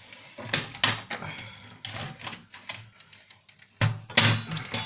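Plastic parts of a PlayStation 1 console being pried and forced apart: irregular plastic clicks, creaks and knocks, the loudest cluster near the end.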